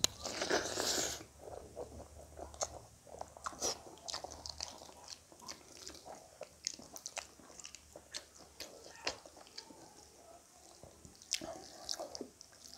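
Close-up, wet chewing of a handful of rice and bitter gourd curry eaten by hand. A louder noisy bite and slurp comes about half a second in, followed by many quick mouth clicks and lip smacks.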